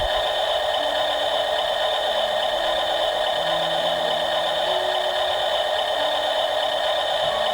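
Small electric motors of RC construction models whirring steadily, with a low hum that shifts in pitch every second or so.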